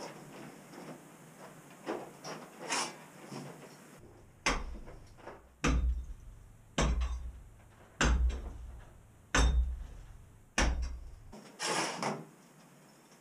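Heavy hand tool striking a concrete floor slab to break it up. A few lighter knocks come first, then six hard, evenly spaced strikes about a second apart, each with a deep thud, and a longer scraping noise near the end.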